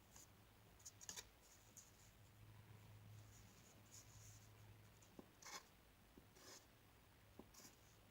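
Faint, irregular scratching of a drawing tool on paper: short strokes, several in a row, with a steady low hum behind them.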